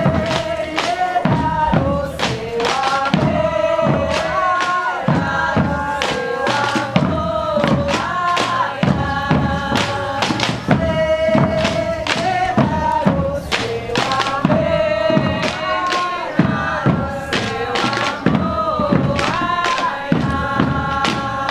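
Women's voices singing a devotional song of the Divino with long held notes, over a steady beat of caixa drums struck with sticks.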